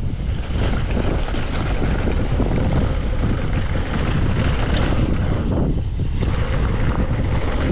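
Wind rushing over the microphone of a mountain biker riding a dirt trail, a steady loud noise mixed with the tyres and bike rattling over the ground.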